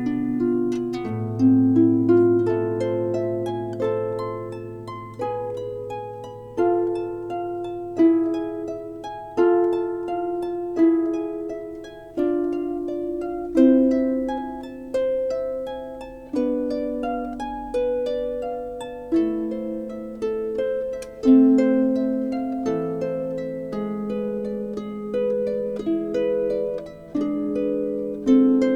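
Slow instrumental harp music: a melody of plucked notes, each ringing and fading, over a sustained low note that changes pitch twice.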